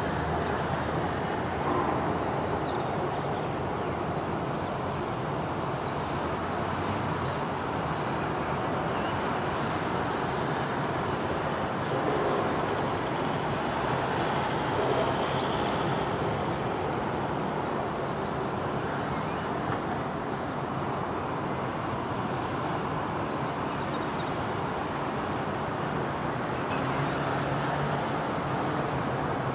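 Steady hum of road traffic, a continuous wash of vehicle and tyre noise.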